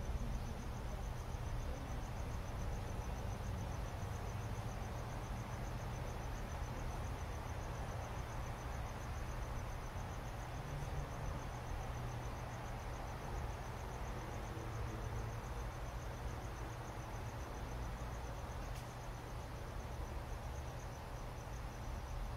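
Crickets chirping: a steady high trill made of rapid, even pulses, over a low background rumble.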